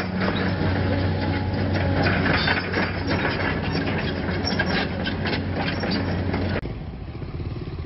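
Engine running steadily with a low hum and constant rattling. It cuts off abruptly near the end, and a quieter, smoother engine idle takes over.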